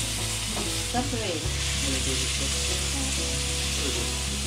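Chicken pieces and garlic sizzling as they are stir-fried in a wok, stirred with a metal spoon.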